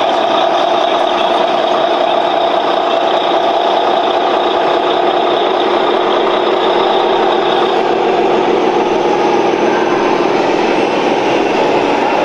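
Steady, loud mechanical running noise like a vehicle or motor, with no breaks or hits.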